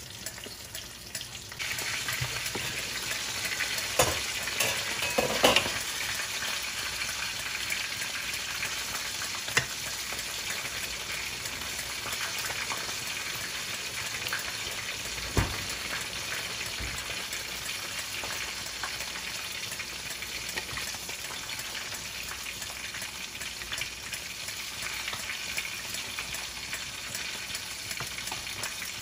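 Chicken misua soup boiling in a stainless-steel pot, a steady bubbling hiss that grows louder about a second and a half in. There are a few knocks around four to six seconds in, and a wooden spoon stirs through the broth.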